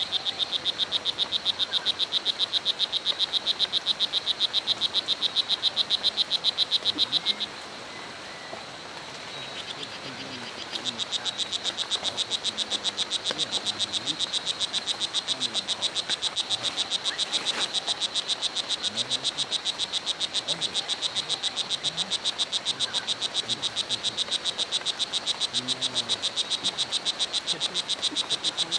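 Strawberry poison dart frog (Oophaga pumilio) calling: a rapid, even train of high chirps. It breaks off about seven seconds in and starts again some three seconds later.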